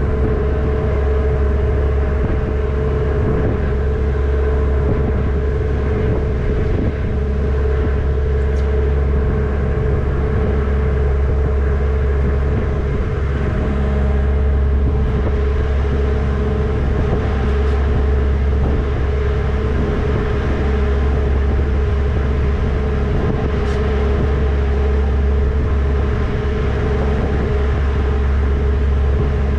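Passenger ferry's diesel engines running steadily under way: a deep, even rumble with a constant hum on top.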